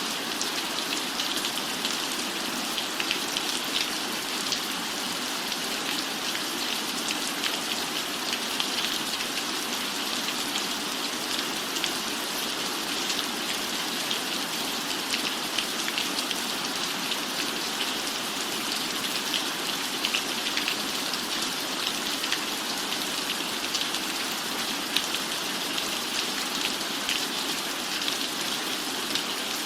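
Steady rain falling on a roof, an even hiss dotted with the quick patter of individual drops.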